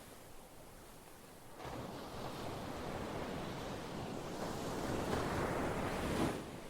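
Ocean waves on a shore: after a quieter lull, a wave rushes in about a second and a half in, builds to its loudest just before the end, then falls away sharply.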